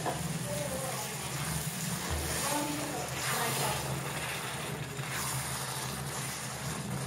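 Silicone spatula stirring chickpeas and masala in water in an aluminium pot, a wet scraping and sloshing over a steady low hum.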